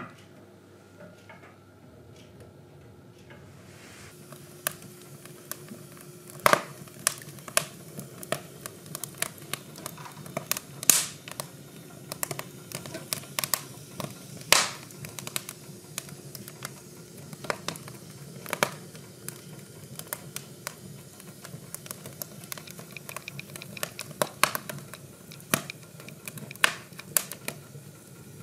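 Acacia logs burning in a cast-iron wood stove, crackling and popping irregularly: many small ticks with a few loud snaps, starting about four seconds in.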